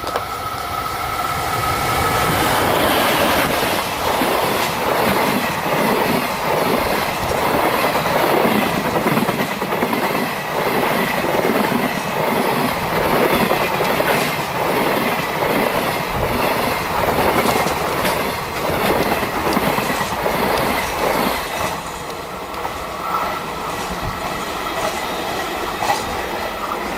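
An electric train passing at speed, its wheels clattering over the rail joints in a rapid, even rhythm for about twenty seconds before it fades.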